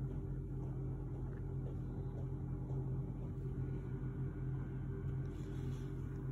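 Steady low mechanical hum, holding one pitch without change.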